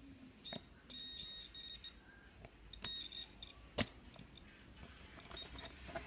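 Digital multimeter's continuity buzzer beeping with a thin, high, steady tone as the probes touch the fan selector switch's speed-3 terminals. The beep signals a closed contact through the switch. It sounds twice, first for under a second and then briefly, amid a few faint clicks of the probes, the sharpest near the end of the second beep.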